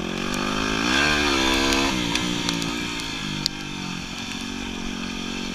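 Yamaha WR250R's single-cylinder four-stroke engine on the trail, revving up and back down about a second in, then running steadily at a lower pitch, with a few sharp clicks.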